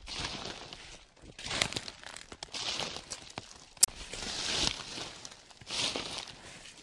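Footsteps crunching through dry fallen leaves, a rustling crunch with each step, about one a second, with one short sharp snap about four seconds in.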